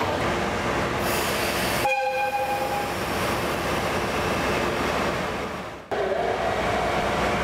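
A one-second blast from the horn of a JNR DE10 diesel locomotive, a steady chord of several notes. The locomotive's diesel engine runs steadily around it at the platform.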